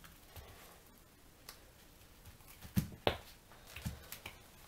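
Scattered light clicks and taps of gloved hands and tools handling a tablet while its screen is being prised up, the loudest a pair of sharp clicks about three seconds in.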